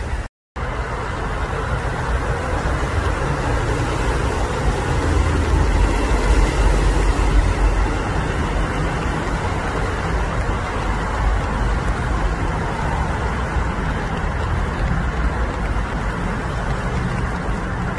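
Steady rumble of road traffic, swelling for a couple of seconds around six to seven seconds in as a vehicle passes. The sound cuts out completely for a moment about half a second in.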